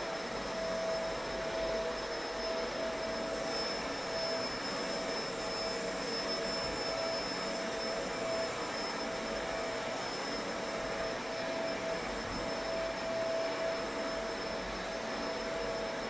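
Upright vacuum cleaner running steadily as it is pushed over a rug: an even motor rush with a steady whine on top.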